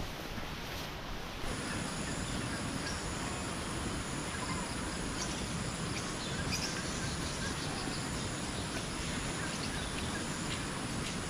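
Steady outdoor background noise, a low even rush, with faint scattered bird chirps and insect sounds.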